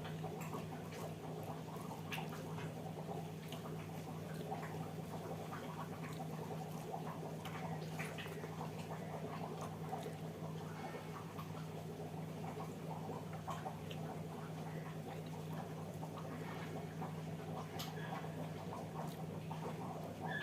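A person chewing soft food such as dal and rice, with many small wet smacks and clicks, irregular throughout, over a steady low hum.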